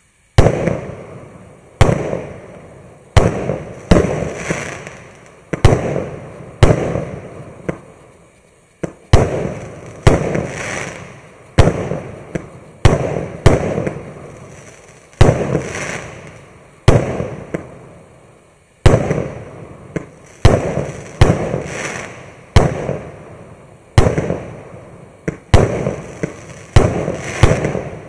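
25-shot consumer fireworks cake firing its shots one after another, about one a second, each a sharp bang followed by a fading crackle.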